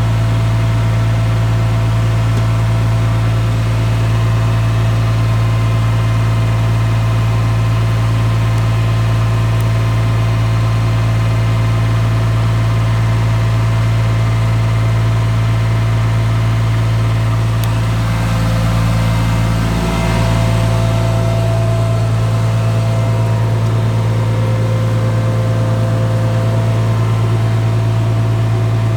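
Turbocharged Ford 1720 three-cylinder diesel tractor running at steady PTO speed, driving a Generac 25 kW PTO generator under about a 9.5 kW heater load. The drone holds steady, with a short dip about twenty seconds in.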